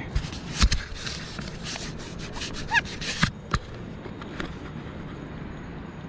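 Cloth rubbing and scraping over the action camera's housing right at the microphone, a quick series of strokes for about three seconds with a couple of small squeaks, then a few scattered knocks: the fogged lens being wiped clear.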